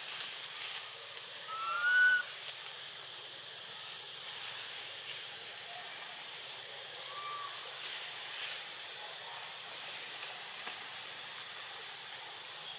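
Steady forest ambience: an even high hiss with a thin high whine, typical of an insect chorus. About a second and a half in, a short rising chirp-like call is the loudest sound, and a fainter short call follows later.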